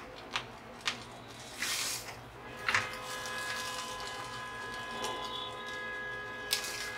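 Wooden spatula scraping and knocking against a metal wok as cooked fried rice is scooped out onto a plate: a few light knocks and a scrape. From about three seconds in, a steady buzzing hum sits underneath.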